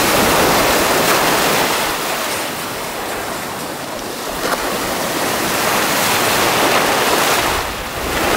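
Surf breaking and washing up a sandy beach, a steady rush of water that swells twice and eases between.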